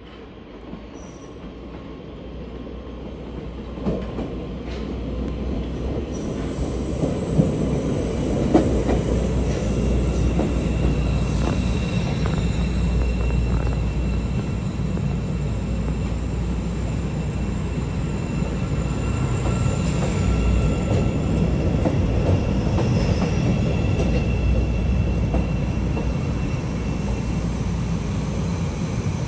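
CTA Bombardier 5000-series rapid transit train arriving, growing louder over the first several seconds as it approaches and then rolling alongside with a steady rumble of wheels on rail. A few sharp clicks sound as it draws near, and a thin, high-pitched wheel squeal rides over the rumble.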